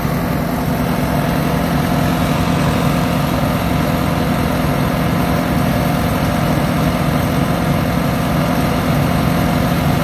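New Holland TR96 combine running steadily with its threshing rotors engaged, blowing out what is left of a plug of tough, wet straw.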